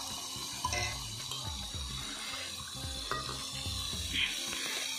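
A spatula stirring sem beans and tomato frying in a pan over a wood-fired chulha: a soft, even sizzle with a few light scrapes of the spatula on the pan.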